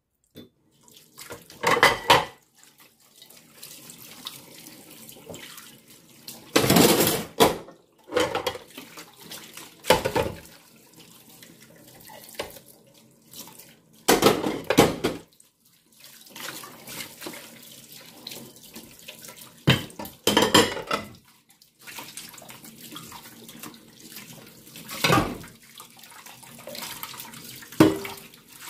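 Dishes washed by hand in a stainless steel sink: tap water splashes over plates and bowls in about six short bursts, with china plates knocking together and sponge scrubbing in between.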